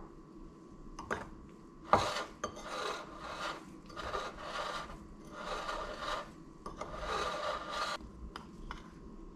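Metal spoon scraping and stirring flour in a ceramic bowl, in four gritty strokes of about a second each, with a sharp knock of spoon on bowl about two seconds in.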